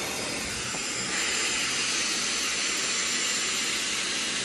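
Dyson hair dryer running on a steady blow, a rushing of air with a faint high whine, getting a little louder about a second in.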